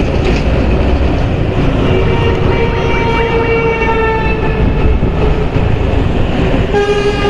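Motorcycle accelerating up through the gears, its engine running under a heavy low rumble of wind on the microphone. About two seconds in, another vehicle's horn sounds as one long steady note for about two and a half seconds, and a second horn starts near the end.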